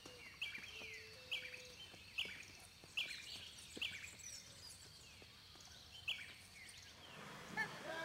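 Wild birds calling: one bird repeats a short call that starts high and slides down, about once a second, over faint higher twittering from other birds. A little before the end a different, lower call sets in.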